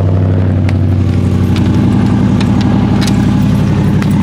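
Car engine idling steadily just after being started, with a few light clicks over it.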